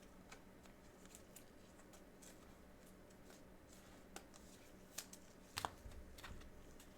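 Trading cards and foil packs being handled: faint scattered rustles and clicks, with a few sharper clicks about five seconds in, over a low steady hum.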